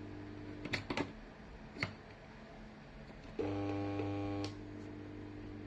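Old fluorescent lamp fixture buzzing with mains hum. The steady buzz drops out after about half a second amid a few sharp clicks. Then a much louder, overtone-rich buzz lasts about a second before the quieter hum returns.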